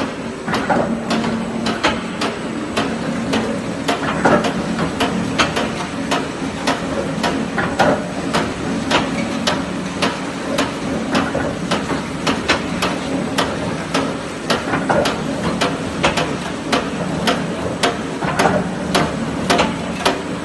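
Glass mosaic machine running: sharp, regular clacks about two or three times a second over a steady motor hum.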